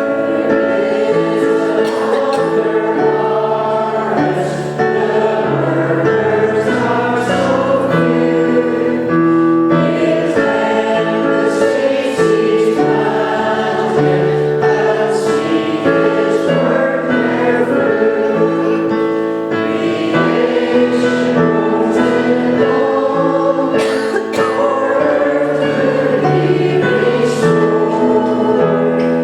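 Church congregation singing a hymn together, held notes moving in steady chord changes without a break.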